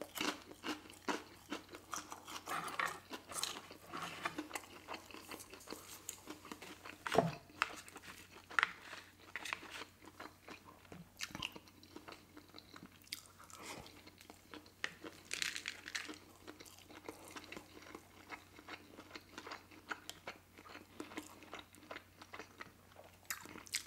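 Close-miked mouth sounds of a person chewing a fried dumpling and then sushi rolls: soft crunches, wet smacks and small clicks, with one louder crunch about seven seconds in.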